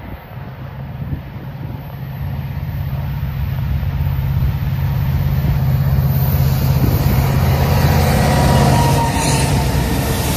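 Diesel locomotives leading a CN freight train approach and pass close by. Their engine drone and the train noise grow steadily louder over several seconds and peak as the lead unit comes alongside near the end.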